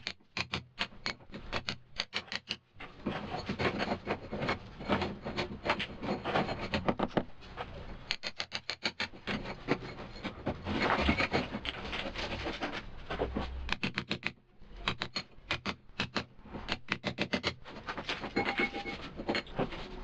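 Mallet blows on a cold chisel chipping into a masonry wall, in quick runs of several strikes a second with short pauses between runs.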